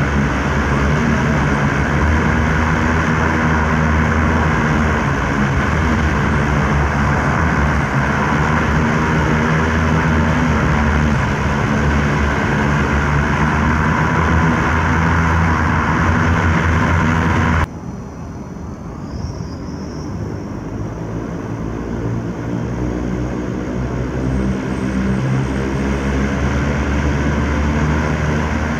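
A large homemade multirotor (manned-drone frame) hovering: its electric motors and big propellers give a steady, low, buzzing hum. About two-thirds of the way through, the sound drops suddenly and turns duller, then slowly builds back up.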